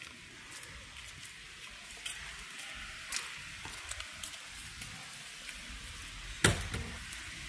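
Footsteps crunching in fresh snow over a steady crackly hiss, with one sharp knock about six and a half seconds in.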